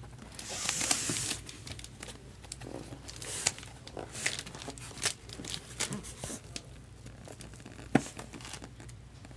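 Cardboard shipping case being handled by hand: a tearing, rustling noise about a second in, then scattered rustles and taps, and one sharp knock about eight seconds in.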